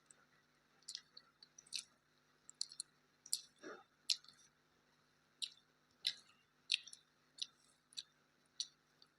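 Close-up eating sounds: wet mouth clicks and smacks while chewing. They come irregularly at first, then settle into a regular smack about every two-thirds of a second in the second half.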